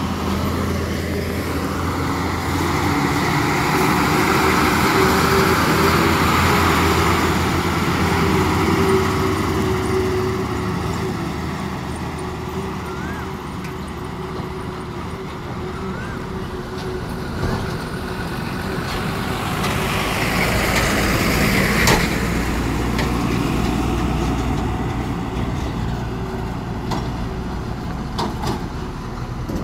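Heavy diesel lorries driving slowly past on a wet road: a steady low engine drone with tyre noise, loudest as an Ashok Leyland truck passes close at the start and again about two-thirds of the way through, when there is a sharp click.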